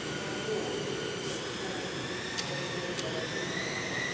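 Electric motor and propeller of a UMX Spacewalker micro RC plane in flight, a steady whine that rises slightly in pitch near the end as the throttle comes up. Two faint ticks in the middle.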